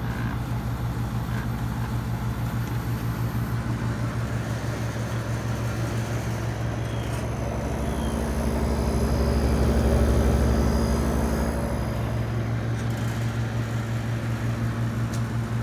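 Vintage 1966–67 Fedders Weather Wheel window air conditioner running on high fan with its compressor just started: a steady, loud hum with a rattle through the cabinet. Around the middle, a deeper low hum swells for a few seconds and then settles back.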